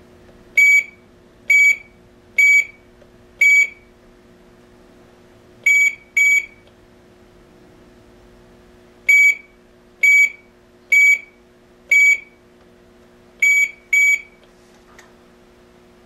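AAS GSM alarm control panel's keypad beeping as its keys are pressed to enter a new user password. The short high beeps come in four about a second apart, then a quick pair, then four more, then another quick pair, over a faint steady hum.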